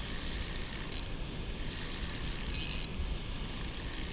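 Steady rushing of water pouring over a river spillway, mixed with wind on the microphone, with a couple of brief scraping sounds about one and two and a half seconds in.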